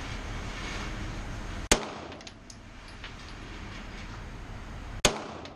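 Two shots from a Beretta 9 mm pistol, about three and a half seconds apart, over a steady background hiss.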